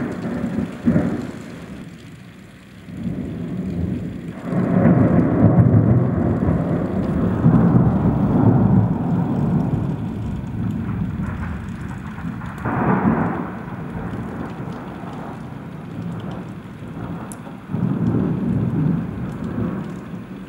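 Thunder under steady rain: two sharp cracks at the very start, then a long low rumble from about four seconds in, another peal around thirteen seconds and a further rumble near the end, from lightning striking close by.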